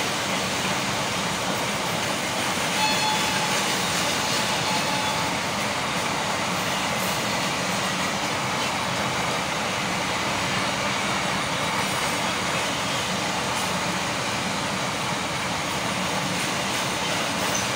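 An empty rake of flat freight wagons running through at speed without stopping: the steady noise of wagon wheels on the rails, continuous and even throughout.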